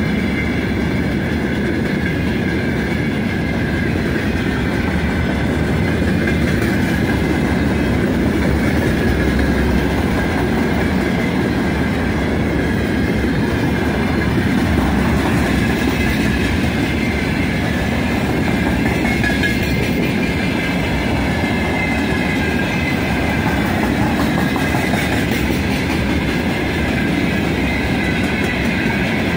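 Freight train of open gondola wagons rolling past close by: a steady loud rumble and clatter of steel wheels on the rails, with a faint, wavering high ringing from the wheels above it.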